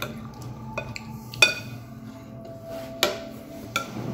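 Metal spoon clinking against a plate while eating, four separate clinks with the loudest about one and a half seconds in, over a steady low hum.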